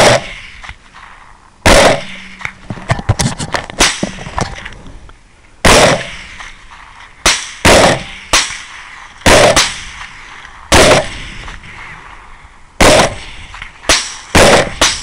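Rifle shots fired in quick succession, about a dozen in the span, some less than half a second apart, each shot a sharp crack with a short echoing tail.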